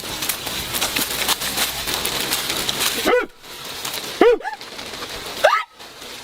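Dense crackling with many sharp clicks for about three seconds, then three short animal calls, each rising and falling in pitch.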